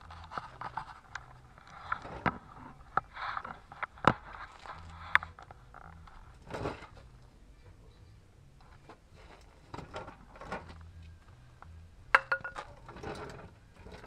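Hand tools and metal parts being handled: scattered metallic clinks, rattles and scrapes, with sharp knocks about four seconds in, about five seconds in and near the end.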